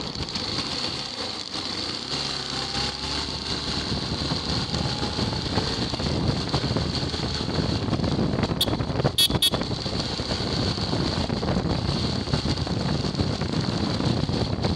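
Motorcycle running along a road while riding, with wind rushing over the microphone. A few sharp, high clicks come about nine seconds in.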